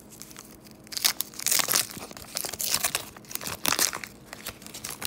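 Waxed-paper wrapper of a 1989 Donruss baseball card pack being torn open and crinkled by hand, in irregular crackling bursts that start about a second in, with a louder rip at the very end.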